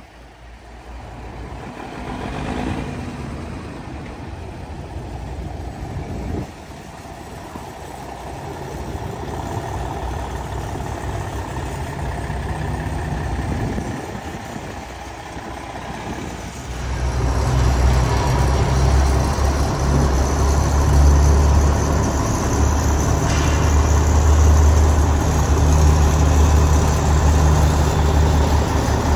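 Heavy diesel truck engine idling, the Cummins N14 of a 1993 Freightliner cabover: a quieter, uneven sound for the first half, then a loud, steady low idle that comes in suddenly about halfway through and holds.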